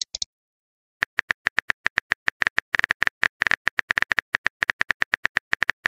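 Phone keyboard typing sound effect: a quick, slightly uneven run of short, sharp taps, several a second, starting about a second in.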